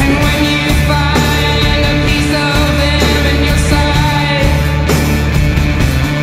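Rock music soundtrack with a sung vocal over a steady beat.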